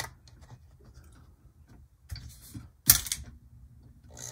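Light clicks and knocks as an HO-scale Bachmann F9A locomotive is handled and set on the rails. A sharp click comes about three seconds in, followed by a faint steady hum as the locomotive's pancake motor gets power.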